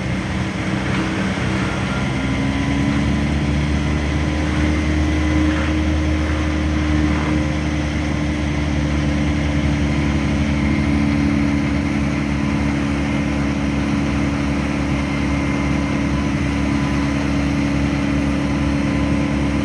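Engine running steadily, its pitch rising slightly about two seconds in and then holding.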